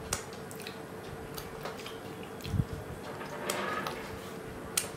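Rice being mixed with poppy-seed paste by hand on plates and eaten by hand: scattered small clicks and sticky squishes of fingers against rice and plate, a soft thump about halfway through and a sharp click near the end, over a faint steady hum.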